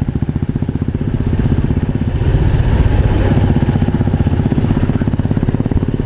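Motorcycle engine running steadily under way, its rapid firing pulses strongest in the low range, getting a little louder two to three seconds in.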